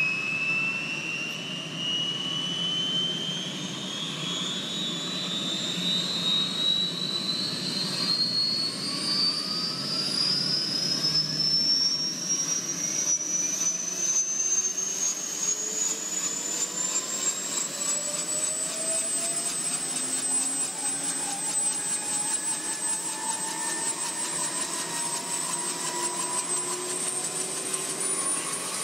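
Small intermeshing-rotor helicopter starting up on the ground: its engine's high whine climbs steadily for about 18 seconds and then holds level, while the rotors spin up and lower tones rise beneath it.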